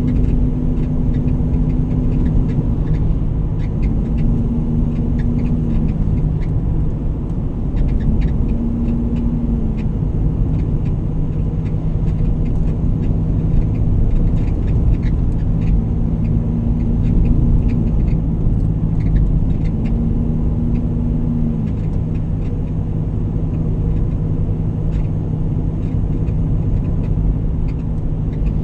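Vehicle engine and road rumble while driving, the engine note shifting up and down several times, with small rattling ticks.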